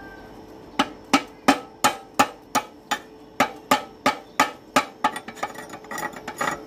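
Steel pipe end striking the seam of a sheet-steel box, a steady series of sharp metal-on-metal knocks about three a second with a short pause midway, turning into quicker, lighter taps near the end.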